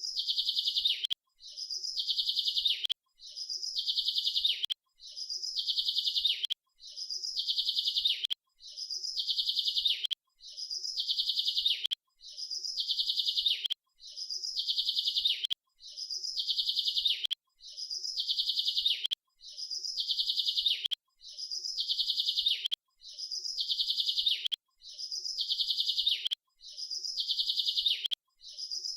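Bird chirping: a quick run of high twittering notes about a second and a half long, repeated over and over at even spacing, about every two seconds, with a short silent gap between phrases.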